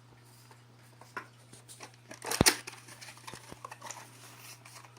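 Cardboard trading card box being opened and handled: scattered rustles and small clicks, with one sharp, loud click about halfway through.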